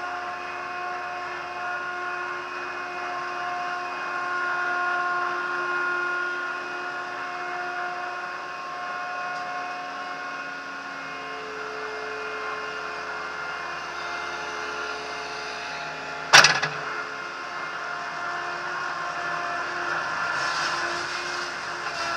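TCM 706 compact loader's engine running as the machine drives, with steady whining tones that shift in pitch now and then. One sharp loud knock about 16 seconds in.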